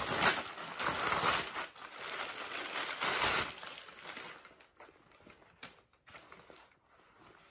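Packaging and a cloth dust bag rustling and crinkling as a handbag is unwrapped, for about three and a half seconds. After that come only a few faint handling noises.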